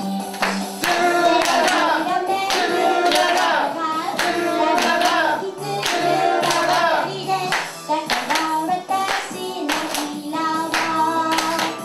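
A young woman singing a pop song into a handheld microphone over a recorded backing track with a steady beat.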